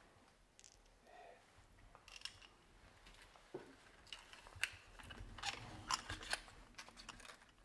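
Faint metallic clicks and clinks of a spark plug socket on a long extension bar being worked down into the plug wells of a BMW M50 engine during a spark plug change, coming thicker in the second half.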